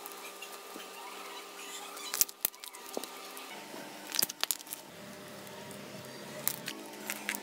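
Beaded slime being stretched, folded and squeezed by hand, giving scattered sticky clicks and crackles in short clusters a couple of seconds apart. Faint steady tones sit underneath.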